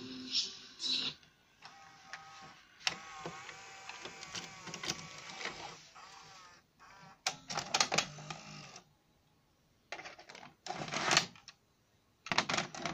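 VCR tape mechanism ejecting a cassette: motor whirring and gears and levers clicking and clunking in several separate bursts.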